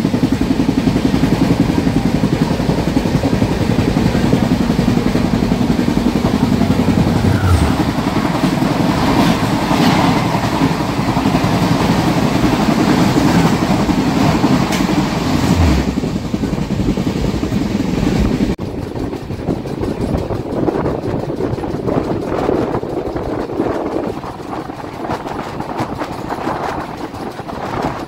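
Indian Railways LHB coaches running along the track: a loud, continuous rumble of steel wheels on rail with a rapid clatter over the rail joints. About two-thirds of the way in the sound turns abruptly duller and a little quieter.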